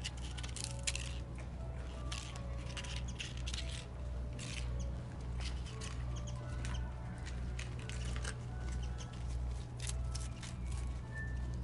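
Sika deer nibbling and crunching a cracker off paving stones, in short irregular crackles, over a steady low hum.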